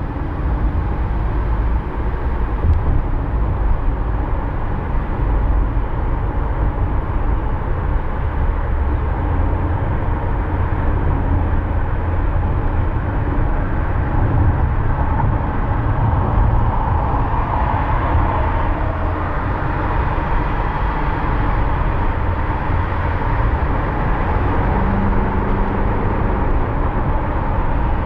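Steady road and engine noise of a car driving, a continuous rumble strongest in the low end, with a brief low steady tone near the end.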